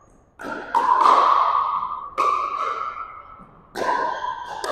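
Pickleball paddles hitting the hollow plastic ball in a rally: a few sharp pops about a second and a half apart, each ringing and echoing in the gym.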